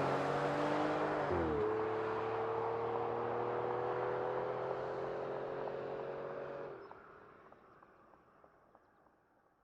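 Aston Martin engine accelerating, its pitch climbing slowly, with a gear upshift about a second and a half in that drops the pitch before it climbs again. The engine sound falls away quickly about seven seconds in.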